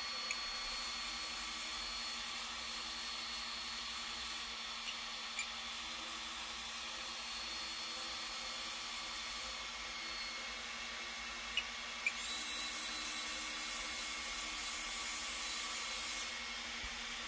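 Small electric spindle (lead-screw) actuators on an RC truck's snow-plow mount running as they drive the mount upward. The motors give a faint whir that stops and starts a few times, loudest near the end, with a few light clicks.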